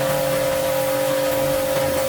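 Motor-driven cleaning machine running with a steady whine over an even hiss.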